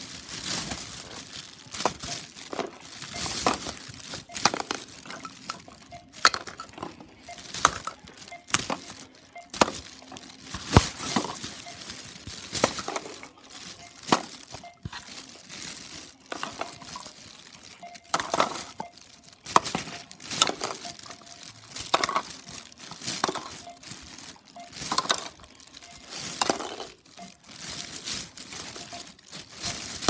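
Thin plastic shopping bags rustling and crinkling in irregular bursts as they are handled, with occasional light knocks of packed toy food and boxes.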